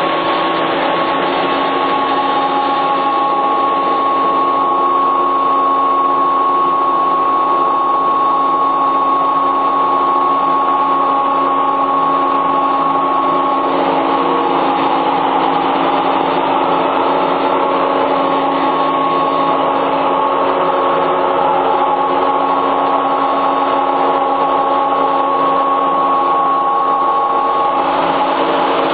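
Electric sugar grinding mill running steadily while it grinds sugar into powder: a constant motor hum with several held tones. Its highest tone fades for a while in the middle and then comes back.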